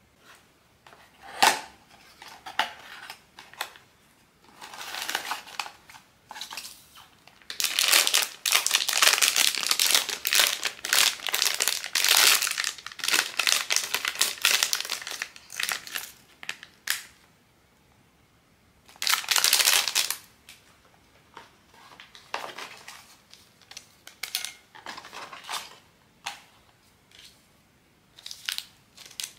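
Plastic blind-box packaging crinkling and rustling as it is handled and unwrapped, in irregular bursts, densest for about eight seconds in the middle with another short loud burst later, and a sharp click about a second and a half in.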